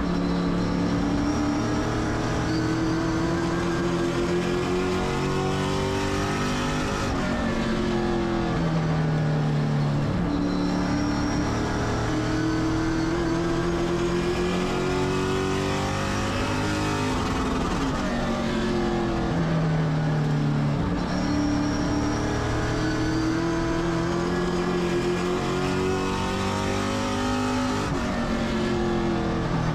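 Race car engine at race pace, its pitch climbing for several seconds down each straight and falling away into each turn, about three times over.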